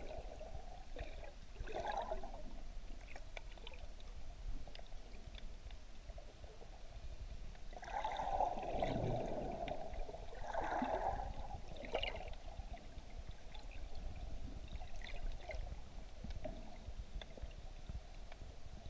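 Muffled underwater water noise: a steady low rumble with gurgling, sloshing swells about two seconds in, again from about eight to eleven seconds, and once more near twelve seconds.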